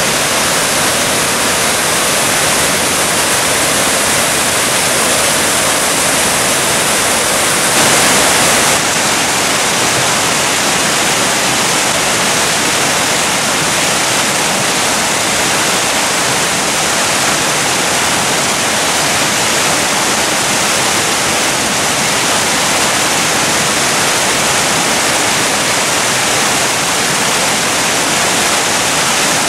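Waterfall pouring into a plunge pool: a loud, steady rush of falling water, swelling briefly about eight seconds in.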